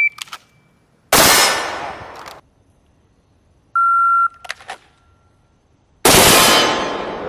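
Shot timer beeps, and about a second later a pistol shot is fired from the draw, ringing out and fading. A second, lower timer beep follows about four seconds in, and about two seconds after it another loud shot: two pistols fired at nearly the same moment in a quickdraw race.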